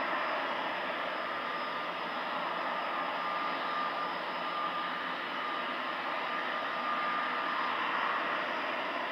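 Airbus A380's four jet engines at takeoff thrust as the airliner lifts off and climbs away: a steady rushing noise with a faint high whine held through it.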